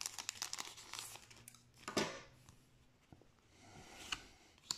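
Plastic wrapper of a freshly cut Yu-Gi-Oh! booster pack crinkling as the cards are pulled out and handled: a run of quick rustling crackles, with a sharper crackle about two seconds in and a few more near the end.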